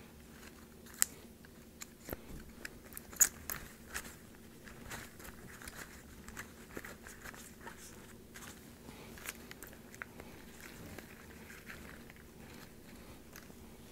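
Dried bunny tail grass and flower stems in a hand-held bouquet crackling and rustling faintly as tulip stems are pushed in among them, with a few sharper clicks, two about one and three seconds in.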